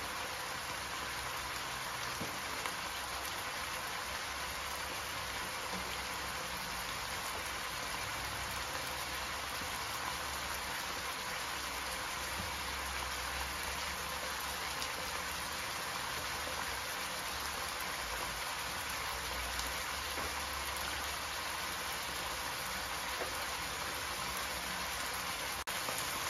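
Diced sweet potatoes simmering in a little water in a non-stick wok, a steady sizzle.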